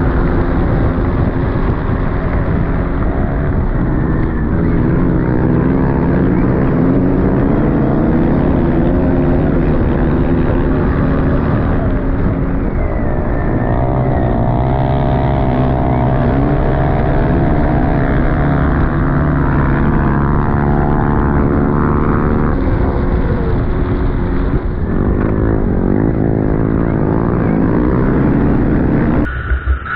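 Stark Varg electric motocross bike at speed on sand. Its motor and drivetrain whine rises and falls in pitch with the throttle over a heavy rush of wind and tyre noise on the onboard microphone. The sound cuts out briefly just before the end.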